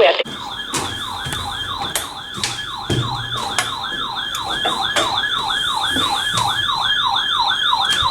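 Weather radio receiver's electronic alert siren: a fast falling whoop, repeating about two and a half times a second, that starts abruptly just after the start, with scattered clicks over it.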